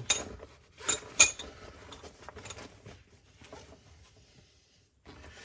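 Metal hand tools clinking against each other as they are handled and put into a tool bag: a few sharp clinks in the first second and a half, the loudest a little after one second, then lighter rattling that dies away.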